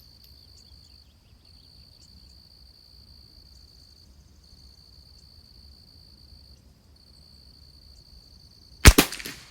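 Crickets trilling steadily in a high pitch with brief breaks. Near the end comes a single sharp shot from a .22 LR rimfire rifle, the Christensen Arms Ranger, firing SK Long Range Match ammunition.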